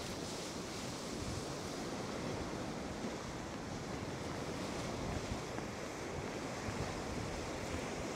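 Lake Ontario waves washing and breaking against the rocky shoreline, a steady rushing wash, with wind gusting across the microphone.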